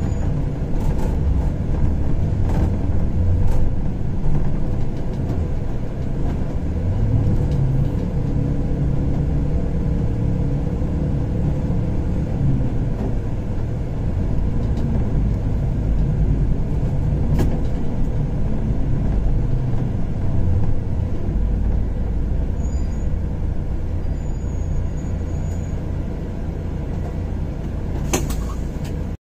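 Car driving through city traffic: a steady low rumble of engine and tyres, with a few short clicks, one near the end.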